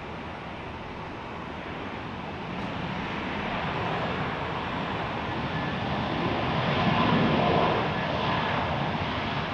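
The jet engines of an Airbus A320-family airliner run on the runway during its ground roll: a steady roar that grows louder and peaks about seven seconds in.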